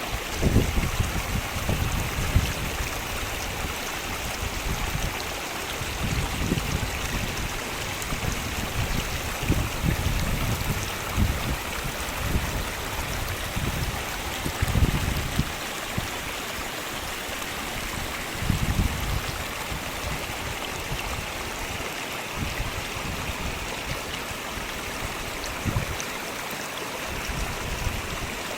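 Steady outdoor rushing noise, with irregular low gusts of wind buffeting the microphone.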